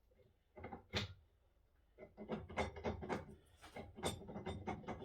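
Metal tools and machine parts being handled during dismantling: a single sharp knock about a second in, then a run of clunks, knocks and scrapes from about two seconds on.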